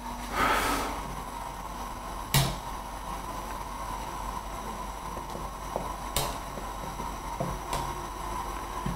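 A metal ladle and wire skimmer stirring bones blanching in a wok of hot water, knocking sharply against the wok twice and ticking lightly against it now and then. A short hiss sounds about half a second in, over a steady low background noise.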